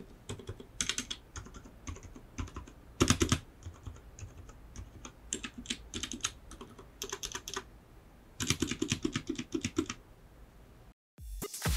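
Typing on a Ninja 71 mechanical keyboard with untuned spacebar stabilizers: irregular runs of key clacks, the loudest about three seconds in and a dense flurry near the end.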